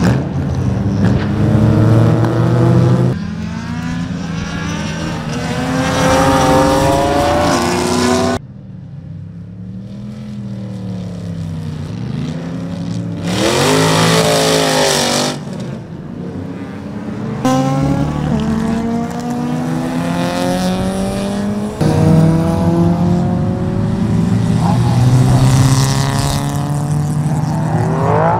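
Cars lapping a race circuit, their engines revving up and down through the gears as they drive past, in a string of short clips joined by abrupt cuts. About halfway through there is a burst of tyre squeal lasting about two seconds.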